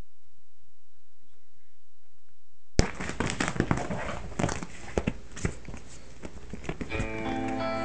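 A faint hiss, then about three seconds in a sudden knock and a run of irregular clicks and thumps: a phone being handled close to the microphone while a cat scrambles after a string right beside it. Guitar music comes in near the end.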